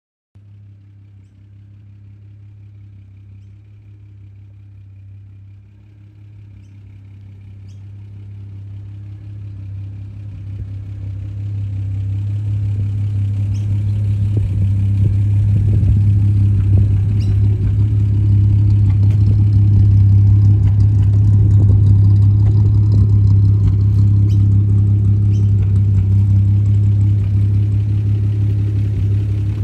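1936 Bentley Derby boat-tail's straight-six engine idling at a steady pitch, growing louder over the first half and then holding steady.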